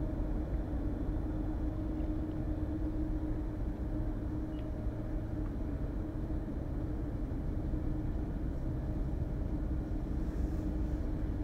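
Steady low engine rumble with a constant droning hum that holds level throughout.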